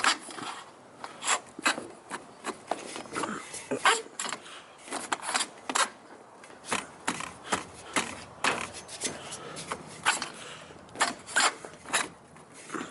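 Cadillac Escalade roof rack being slid and worked into place along an SUV's roof: irregular scraping and rubbing with sharp clicks and knocks, several a second at times.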